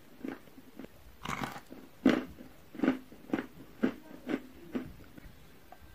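A lump of chalk bitten into with one longer crunch a little over a second in, then chewed with about seven short, crisp crunches, roughly two a second.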